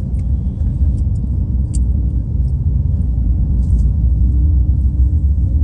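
Steady low rumble of a moving vehicle, engine and road noise with a constant hum over it.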